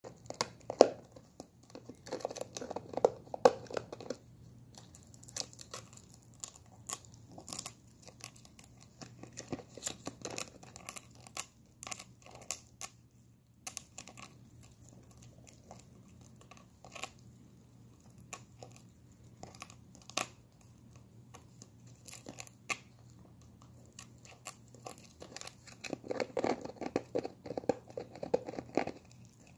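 A small dog gnawing at the cap of a plastic protein-shake bottle: teeth clicking and scraping on hard plastic, with crinkling of the bottle, in irregular bursts that are busiest near the start and again near the end.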